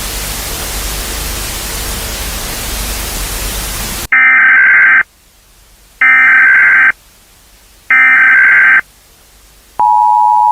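Loud hiss of static for about four seconds that cuts off suddenly. Then three short bursts of Emergency Alert System header data tones, each about a second long with a second's gap between them. Near the end the steady two-tone EAS attention signal begins.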